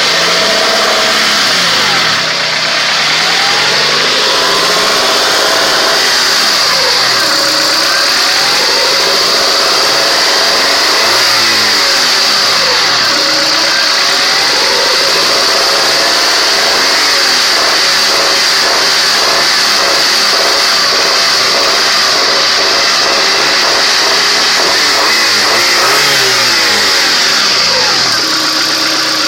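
Honda Accord's F22B 2.2-litre four-cylinder engine revved up and back down slowly, over and over, to bring out the knock and rattle the owner is showing.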